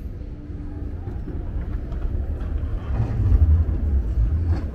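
Low rumble of passing city street traffic, swelling louder for a second or two from about three seconds in.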